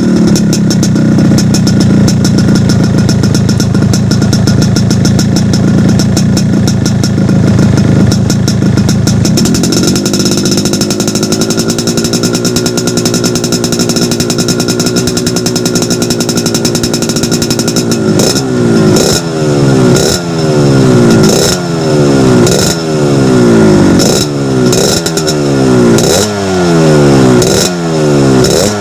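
Yamaha RX-King two-stroke single-cylinder engine running through a reworked (hollowed-out) exhaust. It idles, then holds at a higher steady rev, then from about two-thirds in is blipped repeatedly, about once a second, each rev dropping straight back.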